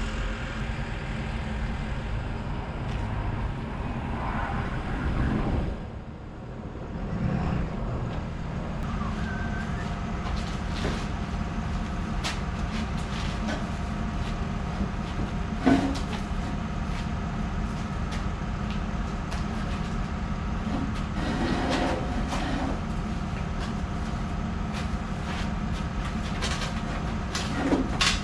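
A vehicle engine running steadily, with a few sharp knocks, the loudest about halfway through and another near the end. The engine sound drops away briefly about six seconds in.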